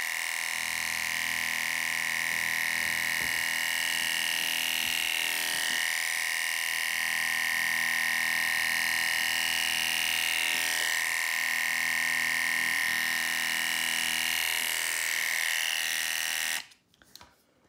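Masterclip Pedigree Pro A5 electric dog clipper running with a steady high-pitched buzz while its blade cuts through fake fur. The pitch wavers briefly twice, and the clipper stops suddenly near the end.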